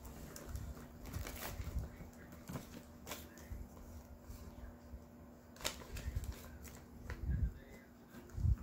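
Paper leaflets and plastic zip bags rustling and crinkling as they are handled, with a few sharp crackles and some soft thumps near the end.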